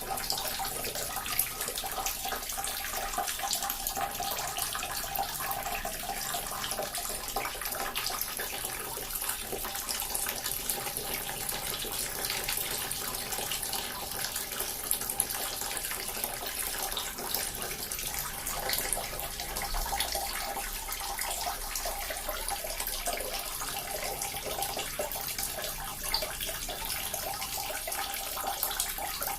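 Small water fountain running, water splashing and trickling steadily with many fine droplet ticks.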